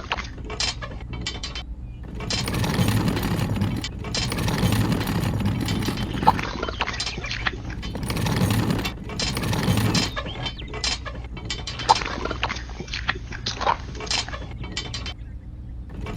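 Small geared mechanisms of miniature model construction machines running in spells of about one to three seconds over a steady low hum, with sharp clicks and clinks between the spells.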